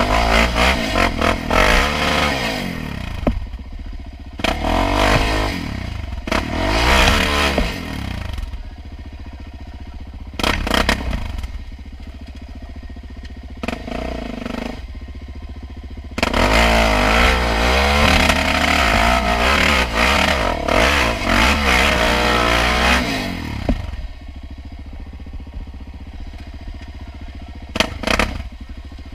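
Sport quad ATV's single-cylinder engine through a loud aftermarket Big Gun exhaust, revved hard in repeated bursts that rise and fall in pitch and drop back to a lower steady note between them. The longest pull comes about halfway through. A few sharp knocks sound near the end.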